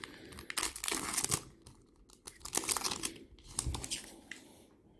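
A Panini Mosaic trading card pack wrapper being torn open and crinkled, in three short rustling bursts.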